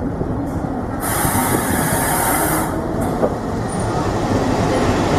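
WDM-class diesel-electric locomotive passing close at low speed along a platform, its engine running with a dense low rumble. About a second in, a sharp hiss starts and stops abruptly after under two seconds.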